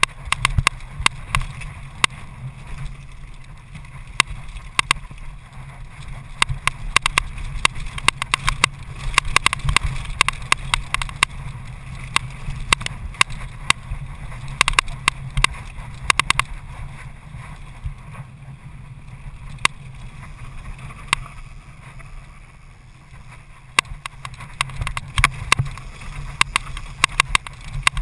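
Downhill mountain bike rattling over a rough dirt trail at speed, with many sharp irregular knocks and clatters as it hits bumps. A steady low rumble of wind on the microphone runs underneath.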